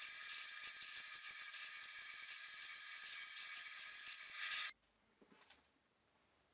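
Bandsaw running as it cuts a curve through a block of softwood: a steady hiss with a high whine. It stops abruptly about two-thirds of the way through.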